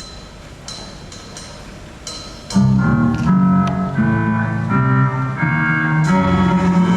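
Stage-show music: a soft passage with faint taps, then about two and a half seconds in the full band comes in loudly with held chords and a strong bass line, changing chords every half second or so.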